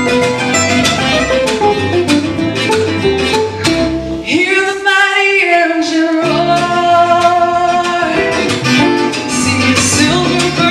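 Live acoustic band: a woman singing over two Gypsy-jazz-style acoustic guitars and an upright bass. The bass drops out for about two seconds near the middle, leaving a held sung line over the guitars.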